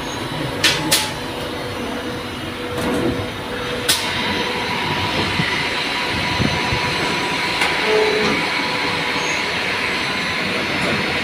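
Steady noise of running machinery in a CNC machine shop, growing a little louder about four seconds in. A few sharp metal clicks, two close together near the start and one about four seconds in.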